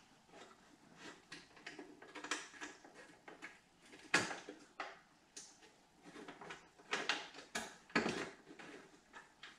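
Wrench clicking and clinking on a bolt and metal bracket as it is fitted and turned, in irregular sharp clicks and knocks. The loudest come a little past four seconds in and again around seven and eight seconds.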